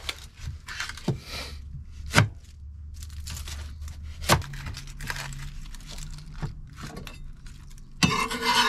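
An onion being prepared with a knife on a cutting board: the dry skin crinkles and tears, with a few sharp knocks of the blade on the board.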